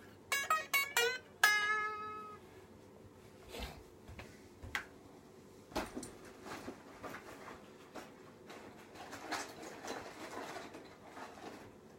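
Strings of an unplugged Les Paul electric guitar plucked by hand: a few short notes, then one note left to ring and fade. After that come faint scattered clicks and rustles of handling.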